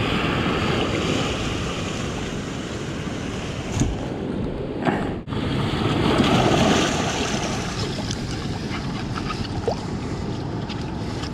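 Shallow sea water rushing and washing over a gravel beach and around a stuck truck's wheels, with wind buffeting the microphone. The steady wash breaks off briefly about five seconds in.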